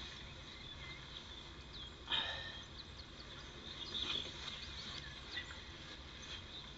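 Small birds singing and chirping, many short high calls, with a louder, harsher short sound about two seconds in and another near four seconds.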